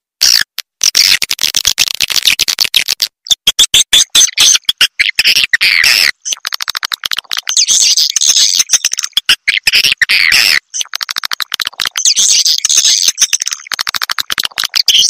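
Edible-nest swiftlet calls: dense, rapid trains of high twittering chirps with a few short breaks. This is a recorded lure call ('suara panggil'), played to call and draw swiftlets into a nest house.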